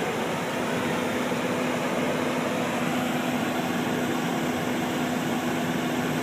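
Generac 37 kW Quiet Source standby generator, an 1800 RPM propane-fuelled engine in an aluminum enclosure, running steadily: an even hum with a steady low tone under it.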